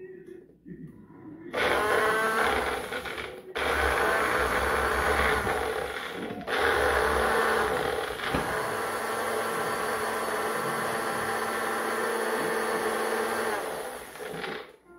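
Single-serve push-down blender's motor running in three bursts, grinding a chunky cabbage chutney mixture. It starts about a second and a half in, cuts out briefly twice, then runs steadily for about seven seconds before stopping just before the end.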